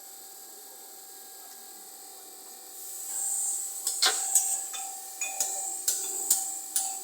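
Metal tool work on a wheel bearing being pressed out: a faint steady hum, then from about three seconds in a rising hiss and a run of sharp, irregular clicks and knocks, about two a second.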